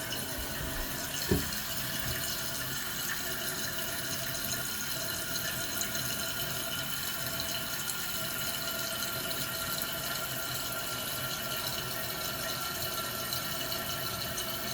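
Toilet tank refilling through its fill valve after the supply valve is opened up: a steady hiss of running water. A single knock sounds about a second in.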